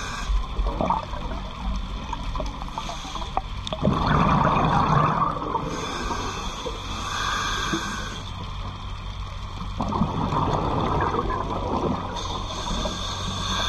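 A scuba diver's regulator breathing underwater: hissing inhales alternating with bursts of exhaled bubbles, the bubble bursts coming about four seconds in and again about ten seconds in.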